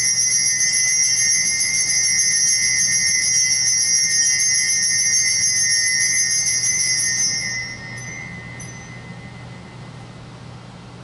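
Altar bells shaken in a steady jingling ring for about seven and a half seconds, then dying away. They mark the elevation of the chalice at the consecration of the Mass.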